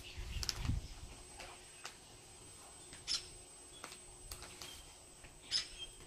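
Red-winged parrot giving two short, sharp high calls, about three seconds in and again near the end, with faint clicks between. A brief low rumble comes near the start.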